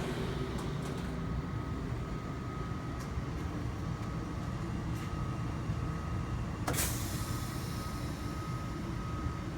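Steady machinery hum and rumble of an automatic gauging cell working beside a CNC machine, with a faint steady whine, a few light clicks, and a short burst of hiss about two-thirds of the way through.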